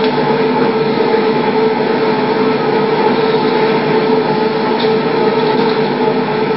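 Steady rushing noise with a constant hum, unchanging throughout; no distinct event stands out.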